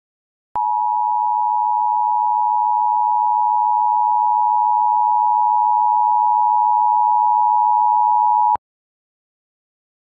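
Emergency Alert System attention signal: two steady tones sounding together (853 Hz and 960 Hz), loud, lasting about eight seconds. It starts half a second in and cuts off abruptly. This is the alert tone that announces an emergency message, here a Child Abduction Emergency.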